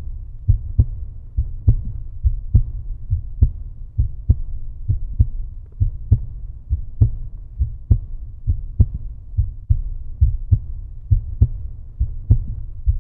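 Background music: a deep, pulsing bass beat of about two to three thumps a second, which cuts off abruptly at the end.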